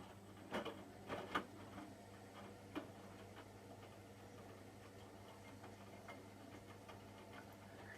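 Hotpoint washing machine running quietly near the end of its cycle: a steady low hum with a few scattered clicks and taps, most of them in the first second and a half.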